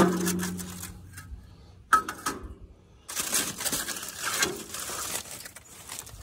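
Metal grill parts being handled: a sharp clank that rings briefly, another clank about two seconds in, then a stretch of rattling and scraping.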